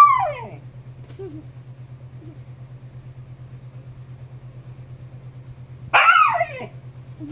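Young husky's loud, high yelping bark that falls in pitch, once at the start and again about six seconds in, with faint short whines between: the puppy protesting at a kitten it is afraid of. A steady low hum runs underneath.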